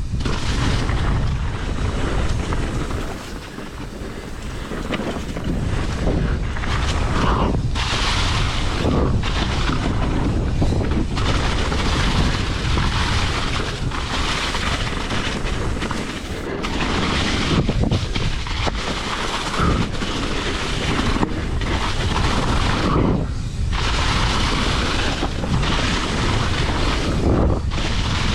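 Wind buffeting the camera microphone, with knobby tyres rolling on a dirt jump trail, as a hardtail mountain bike is ridden fast. The noise dips briefly a few times, the longest about three seconds in.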